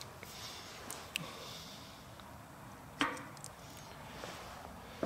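Quiet hand handling of the metal collet spindle of a Snap-on VR-300 valve grinder, turned by hand in V-blocks while run-out is checked. There are a few light clicks, and one sharper metallic knock about three seconds in, over faint room hiss.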